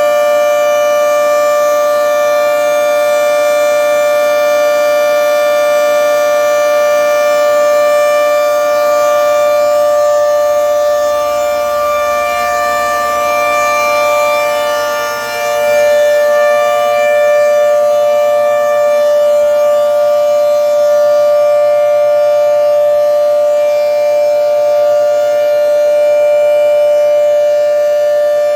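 Federal Signal 3T22 outdoor warning siren sounding its full-alert signal: a loud, steady tone of several pitches held together. It dips briefly in level about halfway through.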